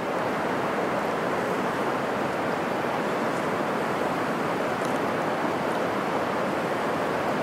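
Shallow river water rippling and rushing over a rocky bottom, a steady even wash.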